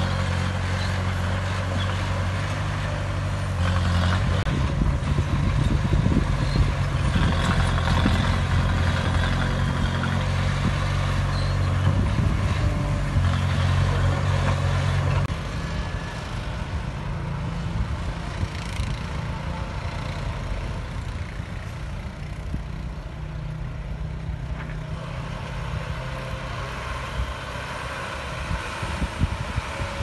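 Diesel engine of a small crawler bulldozer running steadily as it pushes dirt. About fifteen seconds in, the sound cuts abruptly to a quieter engine drone.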